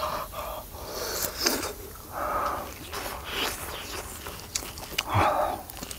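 A person eating a very hot piece of charcoal-grilled pork skin: three short breathy huffs of air out of the mouth against the heat, with small chewing clicks in between.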